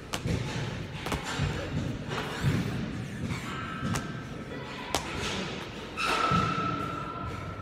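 Repeated thuds of lateral burpees over a dumbbell: hands and body dropping to the rubber gym floor and feet landing from the sideways jumps, several sharp knocks a second or so apart.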